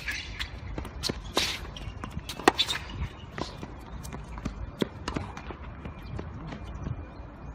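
Sharp, irregular knocks of a tennis ball being struck and bouncing, with scuffing footsteps on the court; the loudest knock comes about two and a half seconds in.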